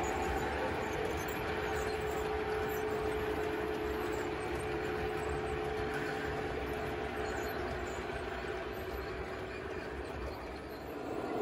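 Model freight train of container wagons rolling along the layout's track: a steady rumble of wheels on rail with a steady hum, easing off slightly near the end as the train passes.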